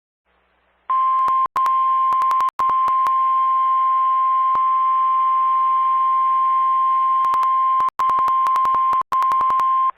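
Emergency alert attention tone of a severe thunderstorm warning broadcast. It is a single loud, steady tone that starts about a second in and holds for about nine seconds, cut by a few brief dropouts and scattered clicks.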